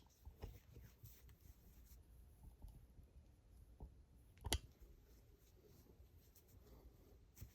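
Near silence with a faint low rumble and a few light, scattered clicks, one sharper click about four and a half seconds in.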